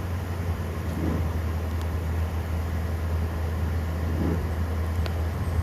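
A steady low rumble, with two faint short high ticks, one about two seconds in and one near the end.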